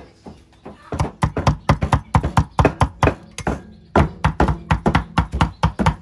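A kitchen knife chopping rapidly on a wooden board, about four to five strikes a second, starting about a second in, pausing briefly past the middle, then resuming.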